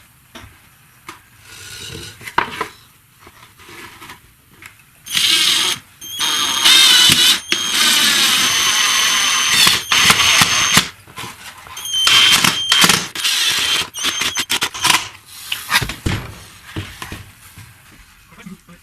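A power tool with a high-pitched whine, run in several loud bursts that start and stop, working on material, with softer scrapes and knocks between.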